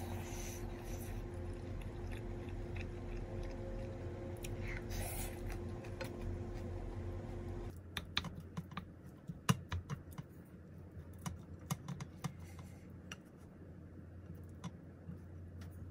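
A wooden spatula stirs and scrapes fried rice in a nonstick frying pan over a steady hum. About halfway through, this gives way to a wooden spoon clicking and scraping against a ceramic bowl in quick, irregular taps as the rice is eaten.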